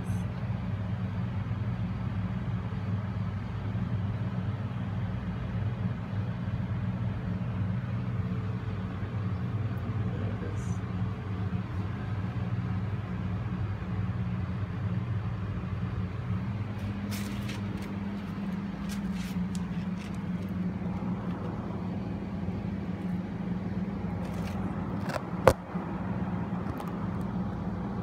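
Saijo Denki air conditioner outdoor condenser unit with a plastic-bladed fan running, a steady low hum. A single sharp click near the end.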